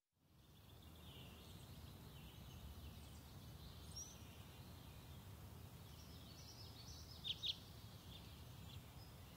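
Faint outdoor ambience: a low steady rumble with small birds chirping now and then, and two sharper chirps in quick succession about seven seconds in.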